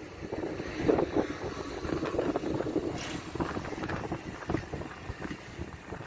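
Wind buffeting the microphone: an uneven rumbling noise that swells and drops in gusts.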